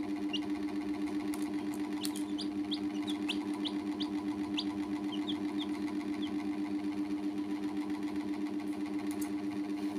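Baby chicks giving about a dozen short, high, falling peeps in the first six seconds, then quiet. Under them is a louder steady mechanical hum that pulses rapidly and evenly throughout.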